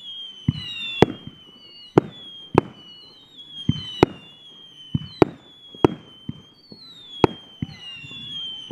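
Aerial fireworks going off in quick succession: about a dozen sharp bangs, one every half second to second, with overlapping high whistles that slide down in pitch.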